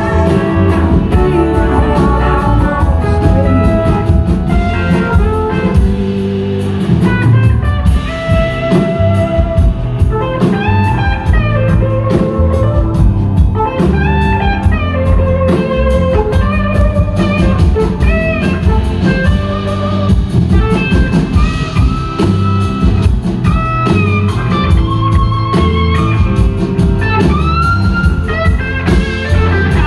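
Live blues-rock band playing: an electric guitar plays a lead with bending notes over drums, bass and a second electric guitar, with no singing.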